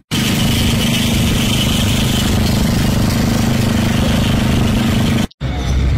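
A motor or engine running steadily with a constant low hum, cut off abruptly about five seconds in and replaced by a different rumbling machine noise.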